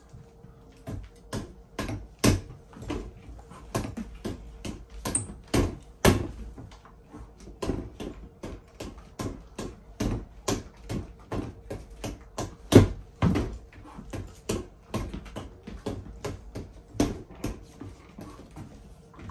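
Fists repeatedly punching a FITVEN freestanding punching bag on a spring pole: sharp slaps and thuds, about two to three a second, in uneven runs.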